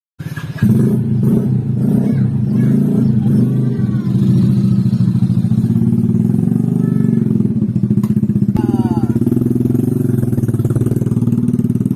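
Motorcycle engine running steadily at a constant speed, with a fast even firing pulse.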